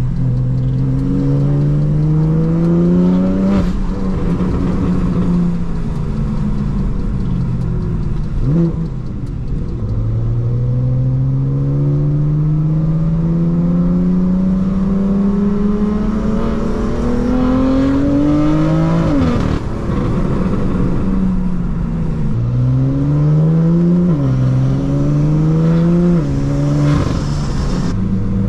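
BMW F80 M3's S55 twin-turbo inline-six, fitted with a Valvetronic equal-length exhaust and catless downpipes, accelerating through the gears. The engine note climbs and drops at each shift, with one long rising pull in the middle and several quicker ones near the end.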